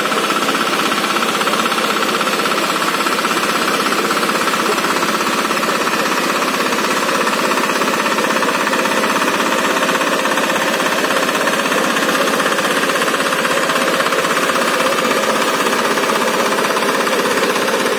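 Walk-behind power tiller's single-cylinder diesel engine running steadily under load while its rotary tines work the soil.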